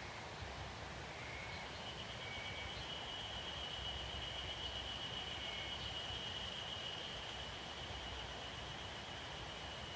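Quiet forest ambience with a steady soft hiss. A thin, high, even trill comes in about two seconds in and holds on. A few short chirps sound during the first half.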